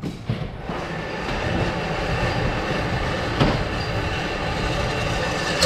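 A steady rumbling, rattling noise with a couple of faint knocks, one about three and a half seconds in.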